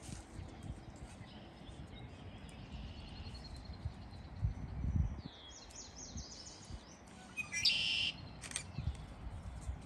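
Wild birds chirping and calling outdoors, with one louder, longer call near the end. A few low thumps come about halfway through.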